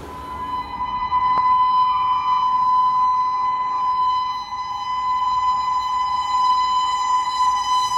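Train horn sounding one long, steady blast on a single pitch, with a faint click about a second and a half in.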